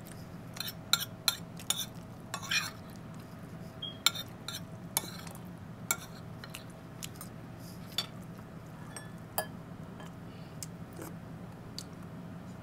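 Metal cutlery clicking and scraping against a plate as meat is picked off a pork bone, with sharp separate clicks that come thickly in the first half and thin out later. A steady low hum runs underneath.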